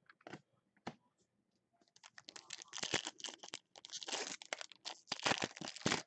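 Foil wrapper of a Bowman Chrome football card pack being torn open and crinkled as the cards are pulled out: a few light clicks at first, then about four seconds of crackling in bursts.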